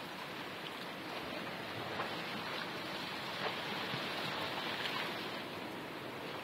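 Steady wash of surf on a rocky shore, with two faint clicks about a second and a half apart.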